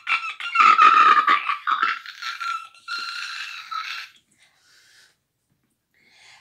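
A person's high-pitched, squealing laughter in quick pulses, stopping about four seconds in.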